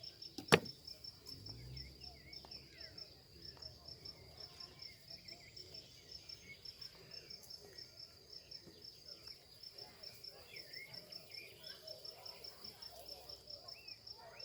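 A cricket chirping steadily in a high, even pulse, about four chirps a second. A single sharp click about half a second in, with faint bird calls here and there.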